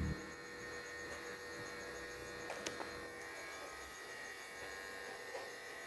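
Steady electrical hum and whine with several fixed tones and a faint, evenly repeating high ticking; two light clicks about two and a half seconds in.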